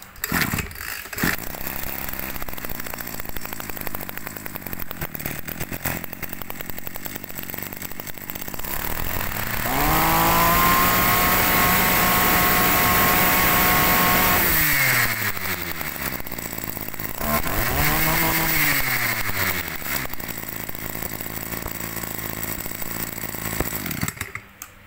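Ryobi 2620 two-stroke brush cutter engine running at idle, then revved up to full throttle and held there for about five seconds. It drops back, is revved again briefly, and settles to idle before cutting off near the end.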